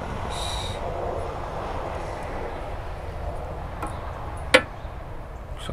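Steady distant engine rumble in the background. Over it, the metal hood latch is being handled: a brief metallic rattle near the start and one sharp metal click about four and a half seconds in.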